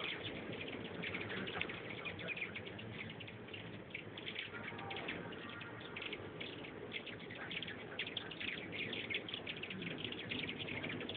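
A swarm of hummingbirds: many rapid, overlapping short chirps without pause, over a steady low hum.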